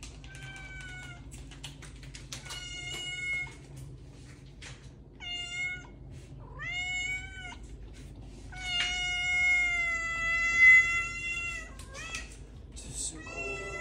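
Domestic cat meowing repeatedly: about seven meows of varying length, the longest a drawn-out meow of about three seconds starting about 9 seconds in.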